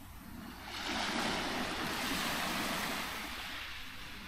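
A small wave washing up a pebble beach, a rushing hiss that swells about a second in and then slowly fades.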